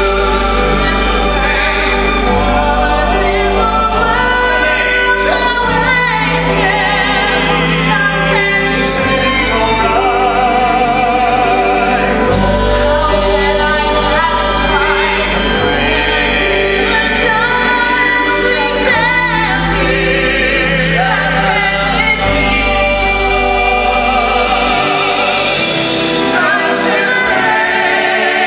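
Live orchestra accompanying operatic-style singing with strong vibrato, over sustained low bass notes that drop away near the end.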